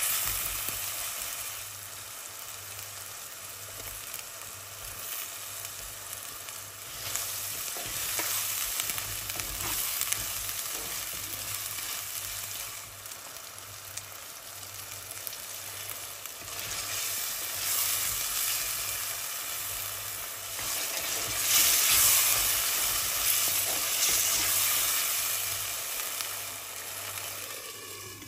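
Onions, tomato and spices sizzling as they fry in oil and ghee in a clay pot, stirred with a wooden spoon. Water is poured in partway through. The sizzle swells, loudest about three-quarters of the way through, then dies down near the end as a lid goes on.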